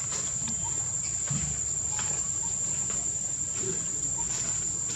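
Steady, high-pitched drone of an insect chorus, with a few faint scattered ticks and scuffs.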